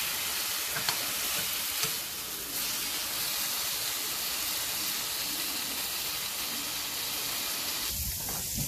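Ground beef sizzling in a hot skillet as it is mashed apart with a wire potato masher, with a couple of light clicks of the masher against the pan in the first two seconds. The sizzle cuts off abruptly near the end.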